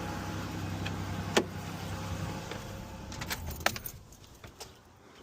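Ford Ranger's 3.0 V6 idling with sharp metallic clicks and clinks from work under the hood, as a hose connection at the heater valve is tightened. The steady engine hum drops away about four seconds in.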